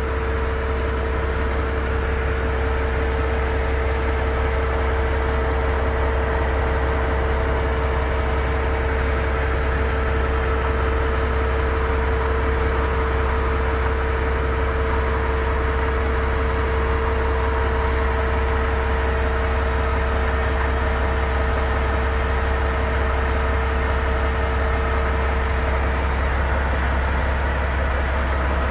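Large engine running steadily at one speed, a constant low rumble with a steady hum above it and no revving.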